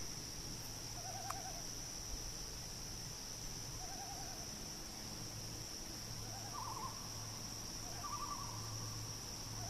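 Distant common loon calling: about five short, rapidly wavering tremolo phrases, the first two lower and the last three higher-pitched.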